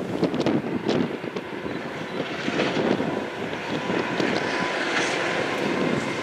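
Low, distant rumble of an approaching diesel freight train, growing slowly louder, with wind gusting and buffeting on the microphone.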